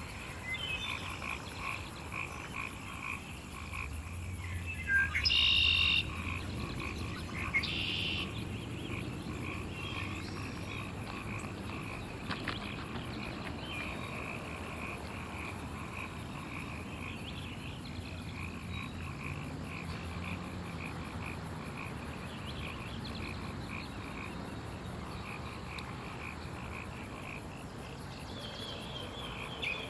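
A chorus of frogs calling steadily, a fast pulsing trill. Two louder, higher calls stand out about five and seven and a half seconds in.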